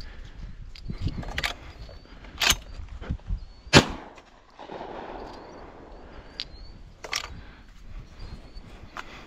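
Shotgun fired several times: sharp separate reports, the loudest about four seconds in, over a low rumble of wind on the microphone.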